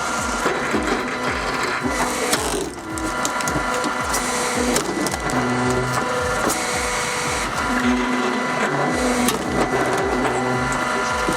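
A wood-processing machine crushing and splitting wood, heard under background music with a steady beat.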